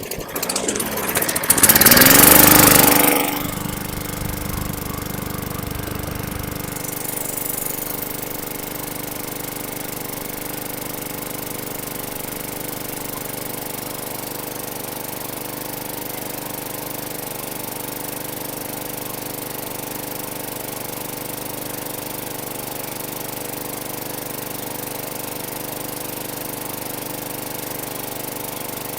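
Bolens push mower's Briggs & Stratton 500E engine starting after priming, catching right away and speeding up quickly, then running steadily. It runs smoothly on a swapped-in carburetor that is jetted right for the engine.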